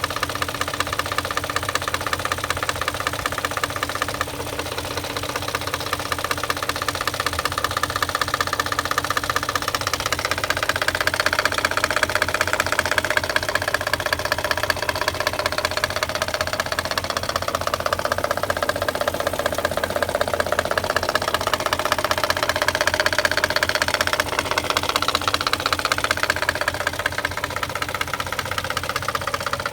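BMW M62B44TU 4.4-litre V8 running with a fast, regular knock from the front of the engine, around the VANOS units. It grows a little louder about a third of the way in. The owner says the knock is absent on a cold start and appears only once the engine is nearly warm.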